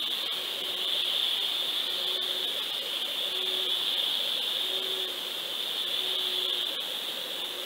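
Steady hiss picked up by a GoFish Cam underwater camera sealed in its housing at depth, with a faint low hum that repeats about every second or so.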